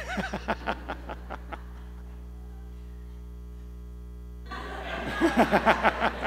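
Laughter: a short run of chuckling at the start, then a louder burst of laughing near the end, over a steady electrical hum.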